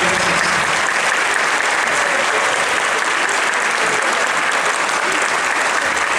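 Concert audience applauding steadily, as the ensemble's final chord dies away in the first moment.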